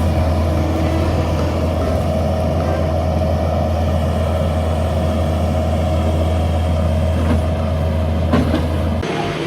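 Engine of a heavy construction machine, most likely the skid steer loader just named, running steadily with a deep, even hum. It cuts to a different sound shortly before the end.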